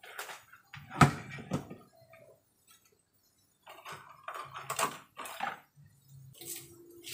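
Knocks and clatter of kitchen items being handled on the counter: a glass sauce bottle set down and a plastic spice container picked up and handled. A sharp knock about a second in is the loudest, another follows half a second later, and a run of clatter comes about four to five seconds in.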